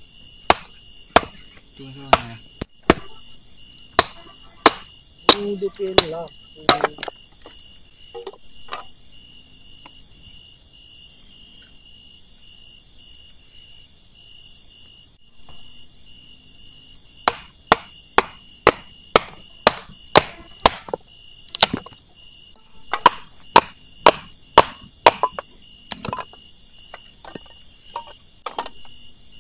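Repeated sharp impacts of a tool striking something hard: a loose run in the first few seconds, then a faster run of about two strikes a second in the second half. Steady, pulsing insect trills carry on underneath.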